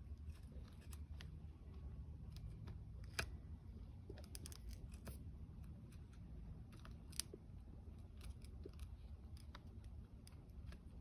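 Scattered light clicks and ticks of hand work on the bike's stator cover and new gasket, over a low steady hum. The two sharpest clicks come about three seconds in and about seven seconds in.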